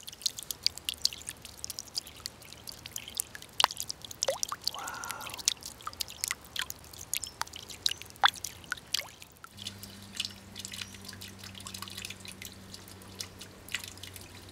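Water dripping and trickling into a shallow stone-lined pool, many separate drips in quick irregular succession. A low steady hum comes in about two-thirds of the way through, under thinner dripping.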